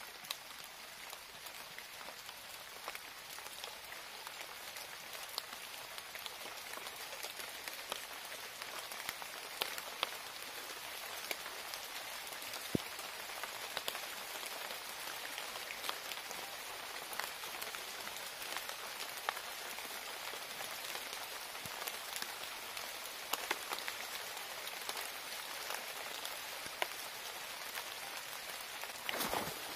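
Steady outdoor hiss with many scattered faint ticks throughout, and a brief louder cluster of clicks and rustles near the end.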